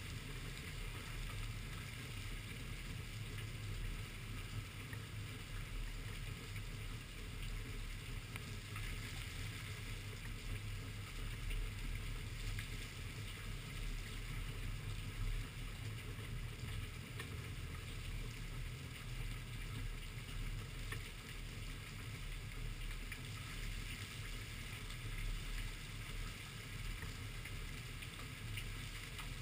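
Steady rain, with many small drops ticking close by over a low, steady rumble.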